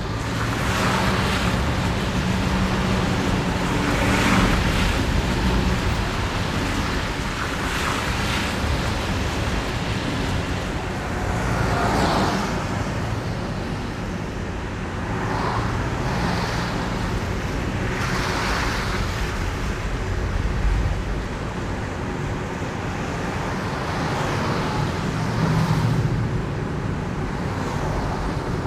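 Car driving on a wet road: a steady low engine and road rumble, with the hiss of tyres on wet asphalt swelling and fading every few seconds as water sprays up.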